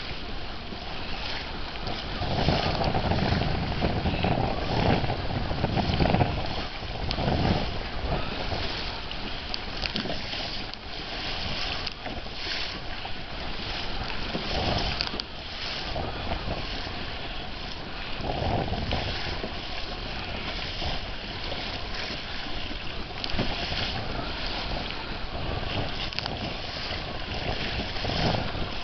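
Wind buffeting the microphone over choppy sea, with waves slapping and splashing against the hull of a Hobie Pro Angler 14 fishing kayak. Stronger gusts come in the first third and again about two-thirds in.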